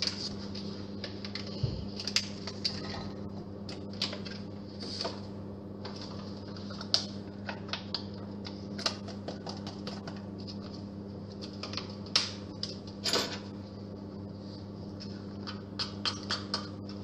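Bacon and salami frying in a steel pot, the fat popping and crackling in irregular sharp pops that come thicker near the end. A steady low hum runs underneath.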